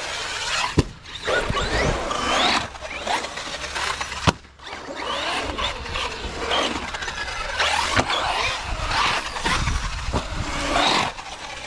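A Traxxas Sledge RC monster truck driving on wet concrete, its brushless motor whining up and down in pitch as it speeds up and slows. Three sharp knocks come about 1, 4 and 8 seconds in.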